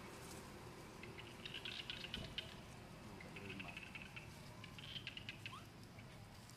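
Faint outdoor ambience with a few short bursts of high chirping and light clicks, spaced a second or more apart.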